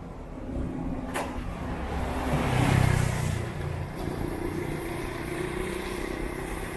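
A car passing close by on a wet street: engine and tyre hiss swell to a peak about three seconds in and then fade. A low steady hum carries on afterwards.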